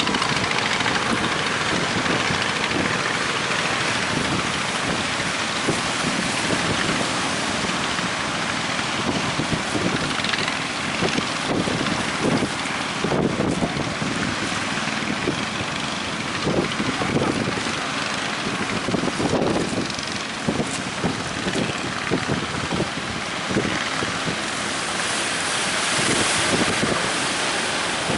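Wind buffeting the microphone and rushing sea noise aboard a boat running through big waves, with the boat's engine under it.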